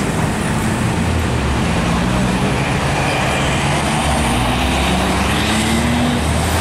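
Traffic climbing a steep hill: heavy container trucks' diesel engines straining under load, their engine notes slowly rising in pitch over a steady rumble of tyres and passing vehicles.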